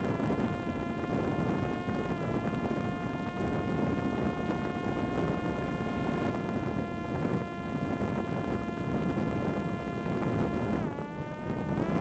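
Parrot Disco drone's electric motor and pusher propeller whining at a steady pitch in flight, heard onboard with wind rushing over the microphone. Near the end the whine dips sharply in pitch and then rises again.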